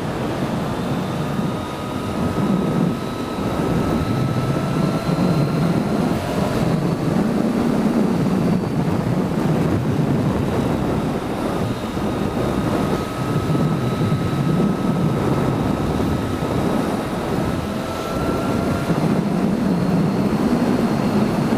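Motorcycle on the move, with wind rushing over the helmet microphone and the engine note underneath. The engine's pitch creeps slowly upward twice as the bike pulls through the gears.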